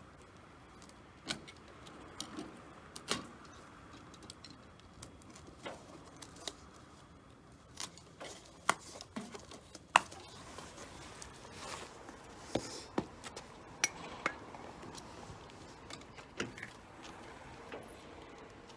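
Irregular small clicks, taps and knocks of tools and parts being handled during air-conditioner installation work, about a dozen scattered through the stretch, the sharpest about ten seconds in.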